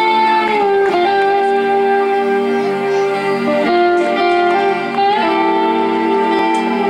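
Live rock band playing an instrumental intro, led by an electric guitar holding long sustained notes that bend down in pitch a few times.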